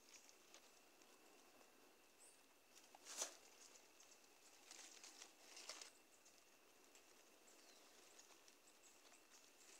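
Faint rustling in grass and dry leaves, with a single sharp click about three seconds in and a short spell of louder rustling around the middle.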